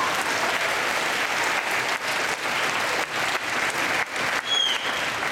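Audience applauding steadily, with one short high whistle about four and a half seconds in.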